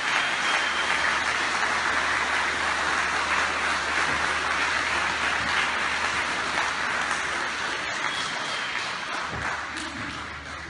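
Audience applauding, a steady clapping that fades out near the end.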